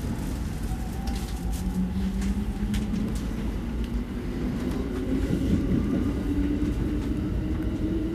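JR Musashino Line electric commuter train running on the rails, heard from the driver's cab: a steady low rumble of wheels on track with a motor whine that slowly rises in pitch as the train gathers speed, and a few light clicks.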